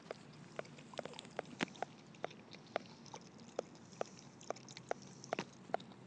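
A chow chow dog lapping water: a run of quick wet clicks and plips, about two to three a second, uneven in spacing.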